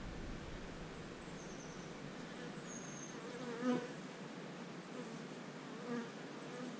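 Carniolan (Carnica) honeybees buzzing around an open hive; a bee flies close past the microphone about halfway through and again near the end, the first pass the loudest sound.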